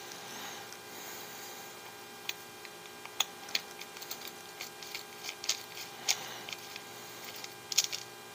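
Small irregular clicks and taps of plastic and metal parts as an RC crawler's rear axle housing and shafts are handled and fitted by hand, starting about two seconds in. A steady electrical hum runs underneath.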